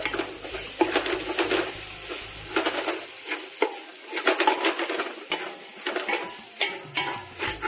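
Spatula stirring and scraping fried onions and spice powders in a metal pan, with irregular scrapes and taps several times a second over a light frying sizzle.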